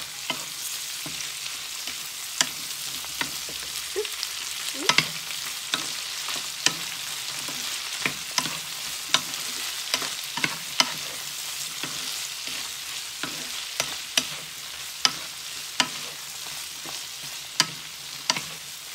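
Green beans and ground pork sizzling in a frying pan, stirred with a wooden spatula that knocks against the pan about once a second.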